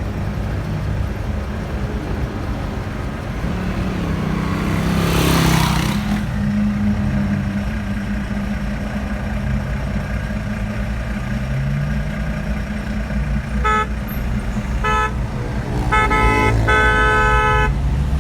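Steady road and engine rumble of a moving car heard from inside, with a louder rushing swell about five seconds in. Near the end a car horn toots twice briefly, then sounds in a few longer honks.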